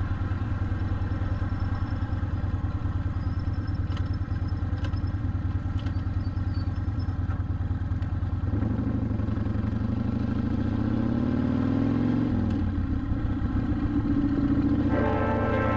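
Motorcycle engine and exhaust running steadily while riding. About eight seconds in, the pitch rises as it accelerates, drops suddenly near twelve seconds at a gear change, then climbs again.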